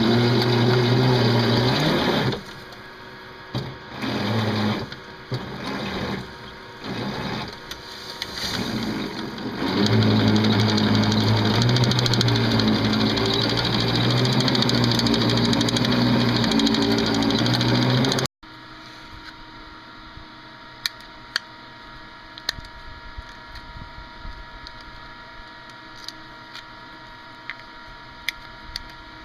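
Small bulldozer's engine running loud and steady, dropping to a lower, broken-up level for several seconds in the middle, then running loud again until it cuts off abruptly about 18 seconds in. After that, only scattered small clicks and handling sounds over a faint steady background.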